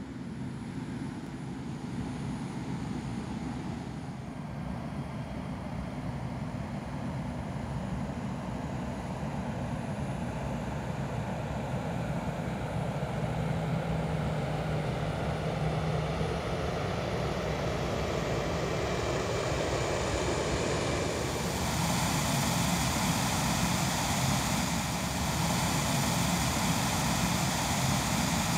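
Aircraft engine noise: a steady rushing drone that grows gradually louder and brighter, with a further rise about two-thirds of the way through.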